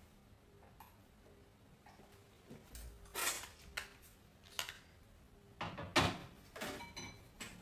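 Crayons clicking and rattling against one another in their box as a hand rummages through it, a run of short knocks and clatters starting about a third of the way in.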